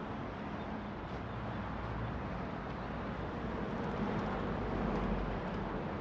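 Steady background rumble of distant motor traffic, swelling a little about four to five seconds in.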